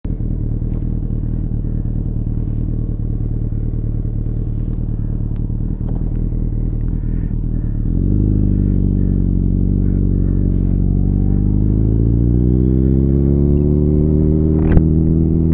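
Suzuki motorcycle engine idling steadily, then pulling away about eight seconds in, its revs climbing slowly. A single sharp click comes near the end.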